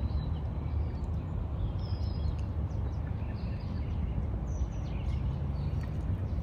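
Outdoor ambience: a steady low rumble, with faint, short bird chirps now and then.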